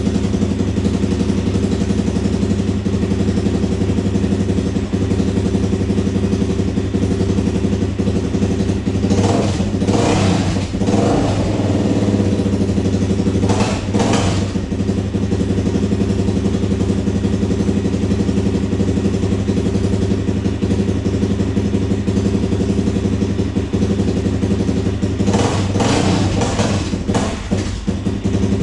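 Suzuki 400 ATV's single-cylinder four-stroke engine running at a steady idle, revved briefly a few times: about ten seconds in, around fourteen seconds, and again near the end.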